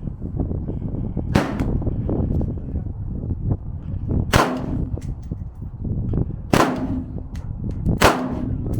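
Four loud gunshots at irregular intervals, each with a short ringing echo, with fainter single shots in between.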